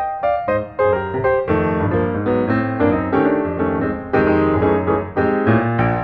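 Background piano music: a steady run of notes over sustained bass tones.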